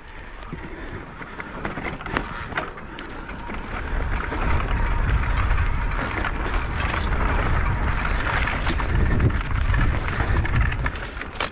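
Mountain bike rolling fast down a rocky dirt singletrack: tyre noise and wind rushing over the helmet or chest camera's microphone, with scattered knocks and rattles from the bike over stones. The rush grows louder from about four seconds in.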